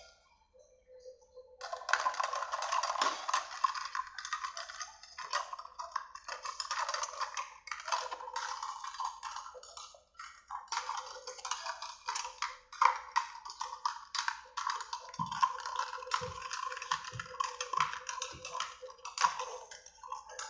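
Eating sounds from a bowl of ramen: a dense, crackling run of small clicks and noise with brief pauses, and a few low thumps in the last few seconds.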